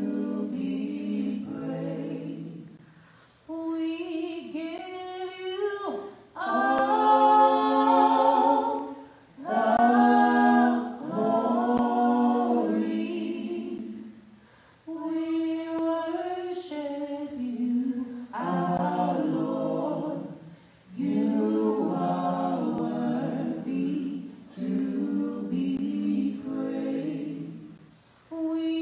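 A small church praise and worship team of men's and women's voices singing a worship song a cappella, in phrases of two to four seconds with brief pauses between.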